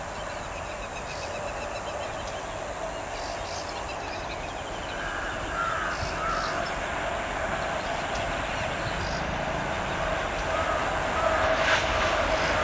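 An approaching ALCo WDG3A diesel locomotive, a steady drone with a held tone that grows slowly louder as it nears. Birds call briefly over it a few times.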